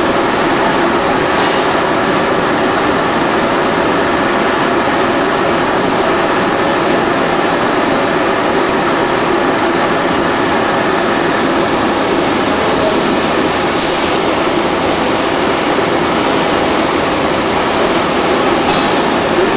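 Steady loud running noise of an automatic packaging machine with pneumatic cylinders, with a brief hiss about fourteen seconds in.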